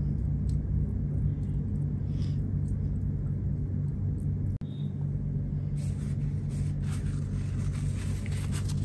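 Steady low background hum, with a brief dropout about halfway through.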